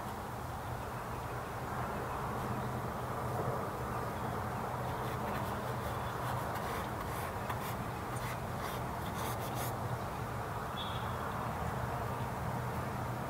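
Steady outdoor background with a low, even hum, and faint light scratches and taps of an oil-paint brush dabbing on a small canvas panel, thickest in the middle of the stretch.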